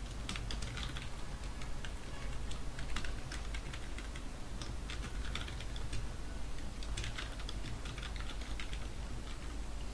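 Computer keyboard typing in several quick bursts of keystrokes with short pauses between them.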